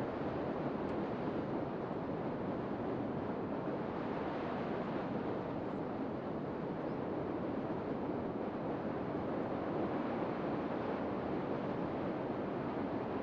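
Steady rush of water pouring from a dam's spillway, an even, unbroken noise.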